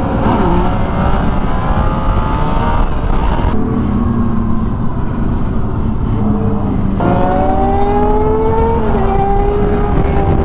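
Motorcycle engines running under hard throttle during a wheelie, with heavy wind rush. About seven seconds in, one engine's pitch climbs steadily, then drops at a gear change near nine seconds.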